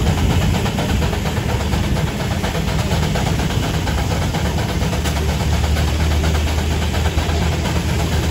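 Steam traction engine running steadily, belted to a sawmill. A continuous, even mechanical noise that is heaviest in the low end.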